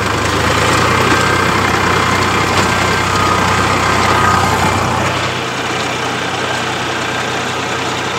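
Diesel tractor engine running steadily, easing slightly in level about five seconds in.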